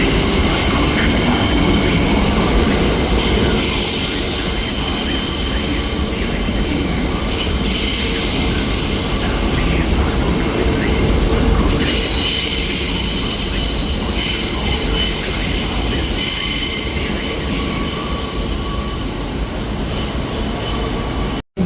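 Train wheels squealing against the rails as a train moves slowly through the station: several high, steady squealing tones that change pitch every few seconds, over a low rumble. The sound cuts out abruptly just before the end.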